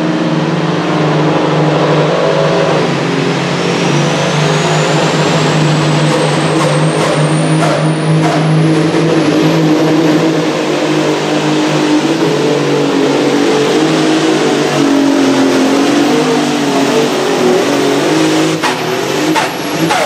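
Krone Hulk II Supersports pulling tractor at full throttle under load during a pull: a loud, steady engine drone with a high whine that climbs over the first several seconds and then holds. A few sharp cracks stand out, and the engine eases off right at the end.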